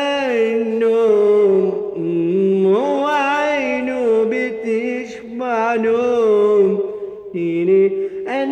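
A man singing an Iraqi mawwal unaccompanied: long held notes that waver and slide through ornamented turns, stepping down to a lower note near the end before rising again.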